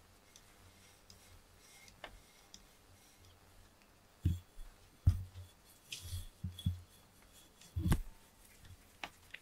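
A cat nuzzling and rubbing its head against the camera and a hand: dull bumps and fur brushing on the microphone, coming in a run from about four seconds in, with a few faint clicks before.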